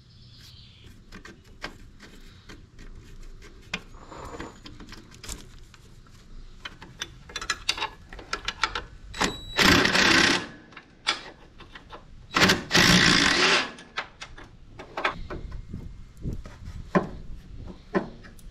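Cordless DeWalt impact driver run in two bursts of about a second each near the middle, backing out bolts on a truck's air-brake relay valve. Small metal clicks and knocks of hand tools and parts before and after.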